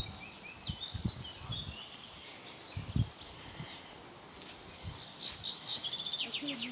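Small birds singing and chirping, with a quick repeated trill near the end. A few soft low thumps sound underneath, about a second in and around three seconds in.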